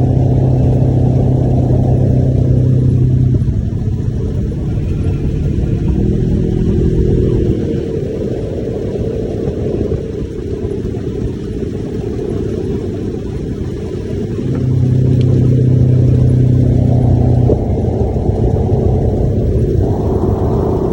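Side-by-side utility vehicle's engine running under way, holding a steady speed, easing off for several seconds, then picking up again.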